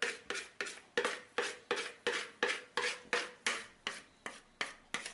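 A utensil scraping and spreading thick brownie batter against a bowl or baking form in quick repeated strokes, about three a second.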